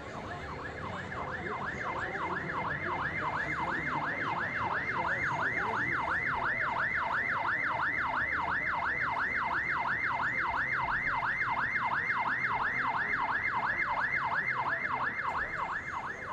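Police car siren in a fast yelp, its pitch sweeping up and down about three times a second, growing louder over the first few seconds and fading near the end, over low street noise.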